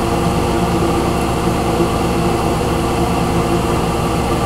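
Kitchen range hood exhaust fan running with a steady hum.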